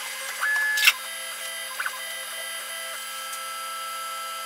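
Creality Ender 6 3D printer running idle while heating, a steady whine of several thin tones from its fans and electronics. About half a second in, a brief higher tone sounds and ends in a sharp click.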